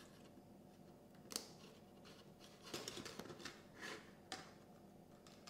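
Faint clicks and light rustling of hands handling small servo wire plugs and foam model-plane tail parts, with one sharp click about a second in and a scatter of clicks around three to four seconds.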